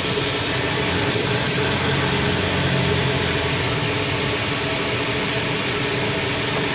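Ford Super Duty 6.2-litre gas V8 idling steadily, running after its crank relay was bypassed with a jumper wire.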